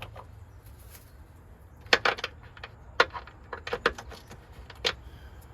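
Sharp metallic clinks of a wrench and loose bolts as rusted truck battery bolts are taken off, about half a dozen irregular clicks, the loudest about two and three seconds in.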